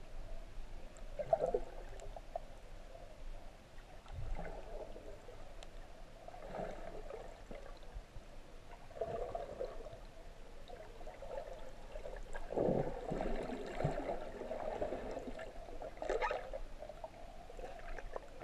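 Water sloshing and gurgling, heard muffled through an underwater camera housing. It comes in irregular swells every few seconds, with a few faint ticks.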